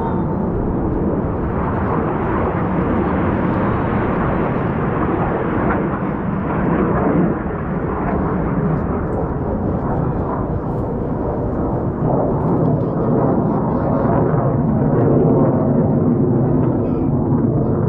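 Jet engine noise from KAI T-50 trainers' F404 turbofans: a steady, dense rushing noise that grows slightly louder in the later part.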